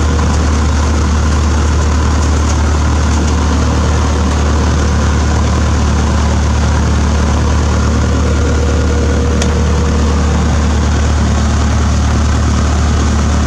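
Cessna 152's Lycoming O-235 four-cylinder, air-cooled engine running steadily at low power while the plane taxis, heard from inside the cabin as a deep, even drone.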